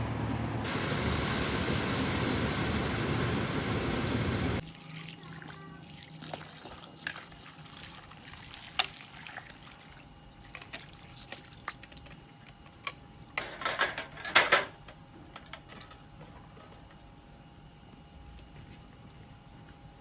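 Water running steadily, stopping abruptly about four and a half seconds in. After that, scattered light clicks and a short burst of clattering a little past the middle.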